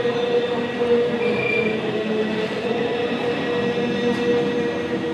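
Steady road traffic: a continuous rumble of passing vehicles with a held humming engine tone.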